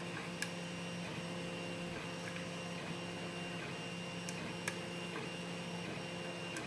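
Steady background hum with a few faint, sharp metallic ticks from a short hook pick working the pin stack of a Kwikset lock.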